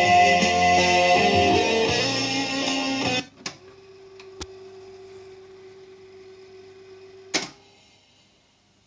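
Music with guitar playing from a cassette through the Sharp GF-525 boombox's speakers, cut off abruptly about three seconds in. Three sharp mechanical clicks from the deck's keys follow, the last the loudest, with a faint steady hum between them.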